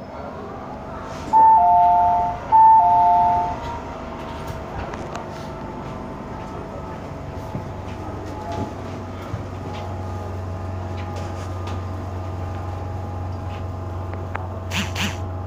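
A two-note ding-dong chime inside an MTR M-Train carriage, a higher note then a lower one, sounds twice in quick succession over the train's running noise. Afterwards a steady low hum rises as the train comes to its stop, with small knocks from passengers moving.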